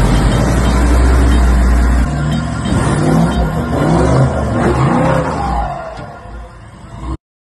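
A four-wheel-drive's engine revving, its pitch rising and falling, with background music, cutting off suddenly near the end.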